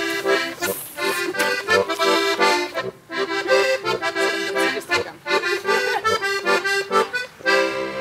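Accordion playing an instrumental interlude of a Gstanzl folk tune: rhythmic chords over steady bass notes.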